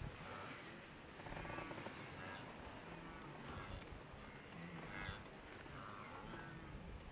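Zebra and wildebeest herd calling: short, harsh calls repeating about once a second over a steady outdoor background, with a few faint high bird chirps.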